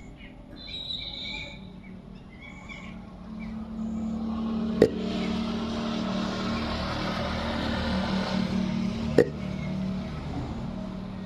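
A girl hiccuping: two sudden, sharp hics about four and a half seconds apart, one about five seconds in and one about nine seconds in. Under them a steady engine hum swells from about three seconds in, and a few bird chirps sound in the first three seconds.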